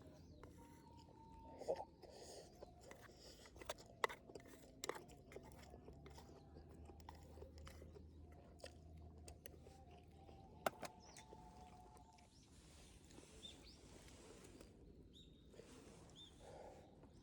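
Quiet eating sounds: soft chewing and crunching with a few sharp clicks scattered through.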